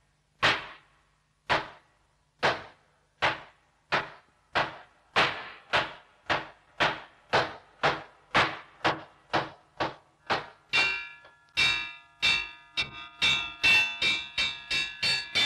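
A wooden semantron (klepalo) struck with a mallet in a steady beat that speeds up from about one stroke a second to two, calling the monks to service. About ten and a half seconds in, ringing metal tones join the strikes and the beat quickens further.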